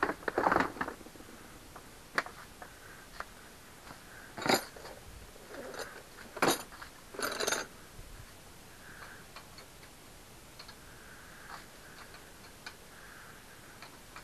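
Metal clinks and clanks of tools and bicycle pedal parts being handled: a handful of sharp knocks in the first eight seconds, then only faint ticks.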